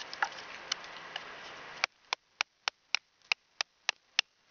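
Knife batoned through a piece of poplar: a wooden baton knocks on the knife's spine in quick, even strokes, about three a second. A few lighter taps over a steady hiss come before them.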